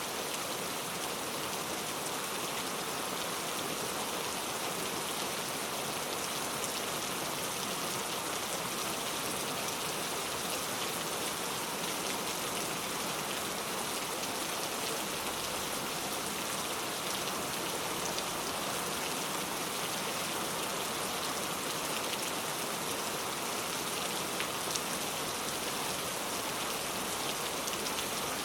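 Heavy rain falling steadily, pattering on a leaf-covered road as a dense, even hiss with fine drop ticks.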